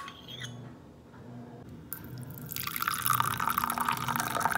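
Coffee pouring into a cup: a steady stream that starts about two and a half seconds in and grows louder, after a couple of light clicks.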